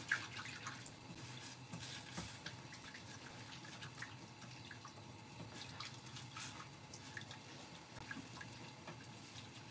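Long chopsticks stirring udon noodles in broth in a metal pot: faint liquid splashing and dripping, with scattered small ticks.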